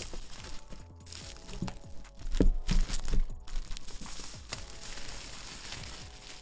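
Clear plastic shrink-wrap being peeled and torn off a cardboard laptop box, crinkling and crackling. A few dull knocks of the box being handled come about two and a half to three seconds in, the loudest moment.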